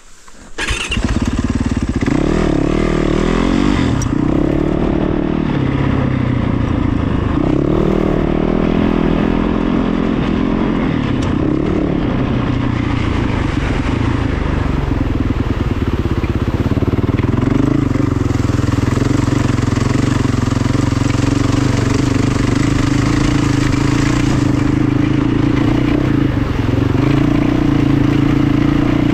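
An engine starts up about half a second in and keeps running steadily. Its pitch wavers for the first dozen seconds, then holds, a little louder, from about sixteen seconds on.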